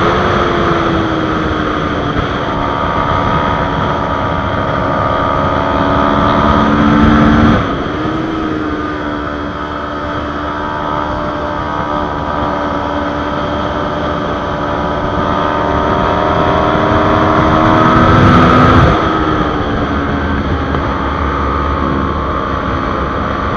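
Kawasaki Ninja 400's parallel-twin engine running at speed on track, heard from on board over wind noise. The throttle is backed off sharply about a third of the way in and again near the end, and after each the engine note climbs steadily as the rider accelerates through the corners.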